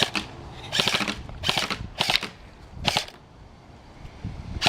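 BB gun firing on full auto in several short, rapid bursts of clicking shots, with a pause before a last burst near the end.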